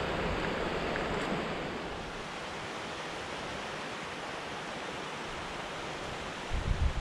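Steady outdoor rushing noise that eases slightly about two seconds in, with a few low thumps near the end.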